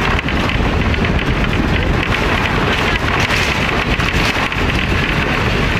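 Steady, loud rushing and rumbling noise, with wind buffeting the microphone.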